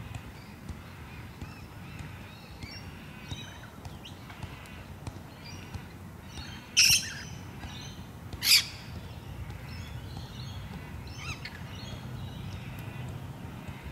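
Birds chirping and singing, with two loud, short, harsh sounds, one about seven seconds in and another a second and a half later, over a steady low background rumble.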